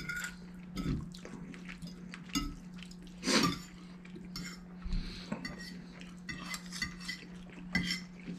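Metal forks clinking and scraping on ceramic plates as two people eat noodles, in scattered small clicks, with one louder noise about three seconds in. A steady low hum runs underneath.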